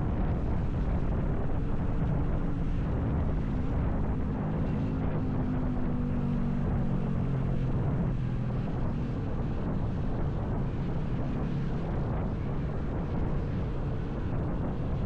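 Motorcycle riding with its engine running and wind buffeting the microphone; the engine note is clearest midway and drops a little in pitch.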